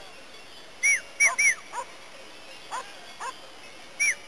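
Sheepdog barking: a quick group of three sharp barks about a second in, another group starting near the end, and fainter barks in between.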